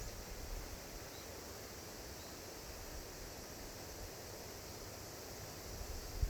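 Steady outdoor ambience of wind and rustling leaves, with a couple of faint short high chirps in the first half and low wind thumps on the microphone near the end.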